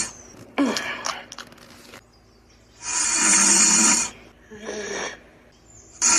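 Loud snoring in a slow cycle: a long, loud snore about every three seconds, with a shorter, quieter breath between snores.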